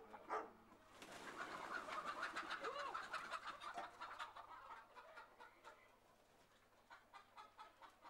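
A flock of chickens clucking and chirping, many birds calling over one another. The calls come in about a second in and fade away in the second half.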